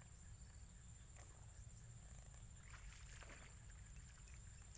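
Near silence: a low steady rumble and a faint high steady tone, with a few faint brief noises about a second in and again around three seconds in.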